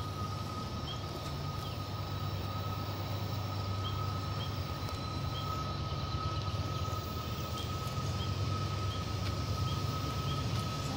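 Low, steady engine rumble, with a thin steady high tone and small chirps repeating every half second or so.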